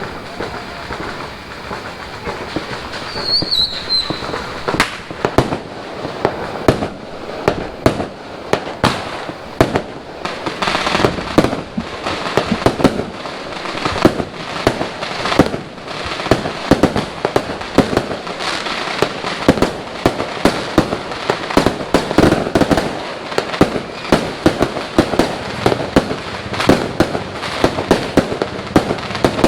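Fireworks going off, many sharp bangs in quick succession, some overlapping, coming thicker after about five seconds, with a short falling whistle about three seconds in.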